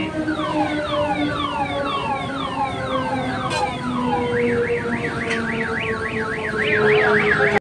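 Electronic siren sounding loud, cycling through repeated falling whoops, about two a second, then switching about four seconds in to a fast up-and-down warble. Under it runs a steady horn-like tone that slowly drops in pitch.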